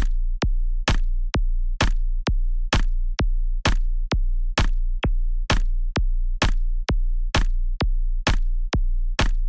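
Electronic DJ sound-check track: a lone drum-machine kick beating evenly about twice a second over a steady deep bass tone.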